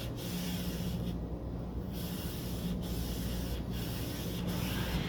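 Rubbing with lacquer thinner on the gilded surface of an old picture frame, testing whether the solvent lifts the gold touch-up. It is a steady rubbing noise that breaks off a few times, longest about a second in. A faint steady low hum sits underneath.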